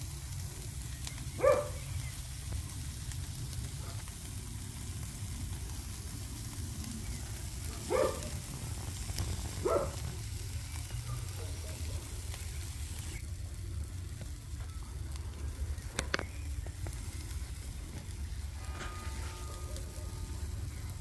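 Meat skewers sizzling over a charcoal grill, a steady hiss over a low rumble. Three short, sharp cries stand out, one near the start and two close together about halfway through.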